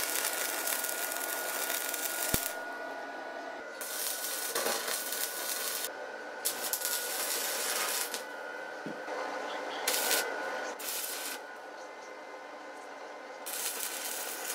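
Electric arc welding of a steel pipe sleeve onto a steel bike frame: the arc crackles and sizzles steadily, stopping briefly several times and striking up again. A faint steady high whine runs underneath.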